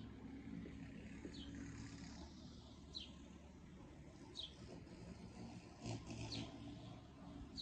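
A small bird chirping: short high falling chirps, one about every second and a half, over a steady low city rumble.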